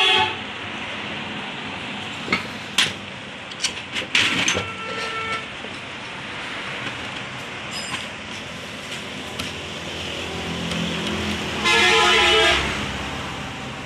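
Steady traffic noise with a vehicle horn sounding once for about a second near the end, and a few light clicks and knocks of tools and hands on the alternator's metal housing.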